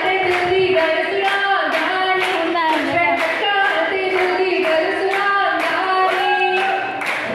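Group of women singing together with steady hand clapping, about two claps a second, in the rhythm of a giddha dance circle. The clapping stops near the end.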